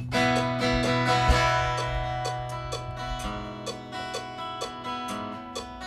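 A band's song with no singing: acoustic guitar strumming chords in a steady rhythm over a held bass note, slowly growing quieter.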